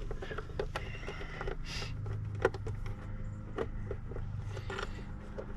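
Scattered light clicks and knocks from hands and tools working on a car's interior trim, over a steady low hum.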